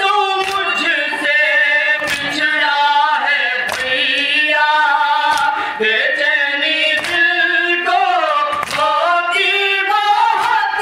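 A noha, a Shia Muharram lament, sung unaccompanied by a boy and young men into a microphone, with other men joining in as a chorus. Low chest-beating (matam) thumps fall in time with the chant about every one and a half seconds.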